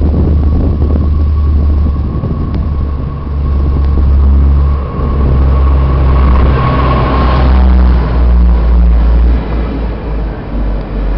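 SNCF AGC bimode railcar (B 81500 series) pulling out under diesel power and passing close by: a heavy engine rumble with a steady whine. It grows loudest as the front car goes past about seven seconds in.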